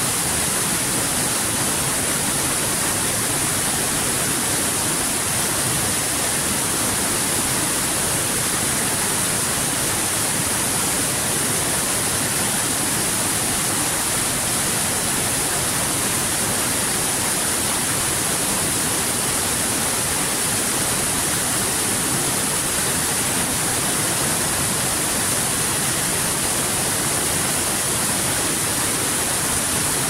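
Waterfall: a steady rush of falling water with a strong hiss, unchanging throughout.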